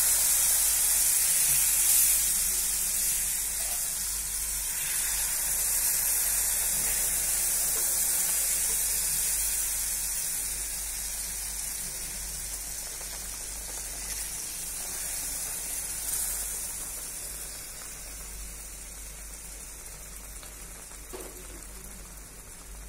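Hot boiled milk and water poured slowly into semolina roasted in hot ghee in a kadai, hissing and sizzling as the liquid hits the hot fat. The sizzle is loudest at first and dies down gradually as the pan cools and fills with liquid.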